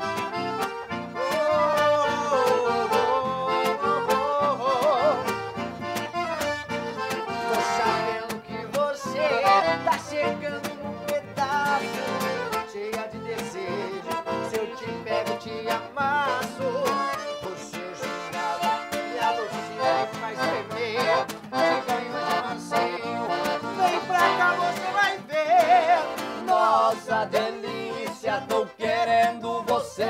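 Live band music led by piano accordions playing the melody, with acoustic guitar strumming along, in a mostly instrumental passage of an upbeat vaneira-style song.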